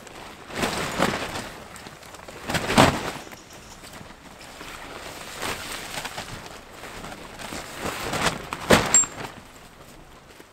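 Nylon tent fabric rustling and swishing as a pop-up tent and its panels are handled, in several surges, the loudest about three seconds in and near nine seconds.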